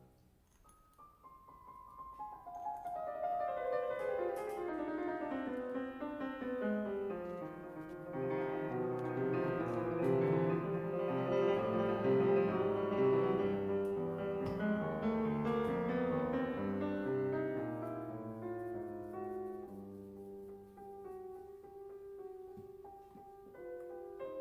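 Background piano music: a solo keyboard piece whose notes start soft, build to a fuller, louder passage in the middle and ease off toward the end.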